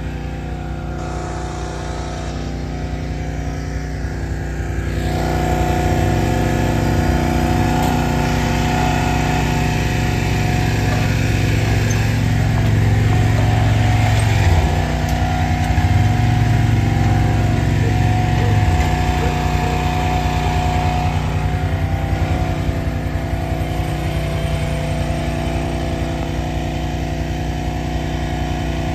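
ATV's small gasoline engine running steadily at a constant low speed, getting louder about five seconds in.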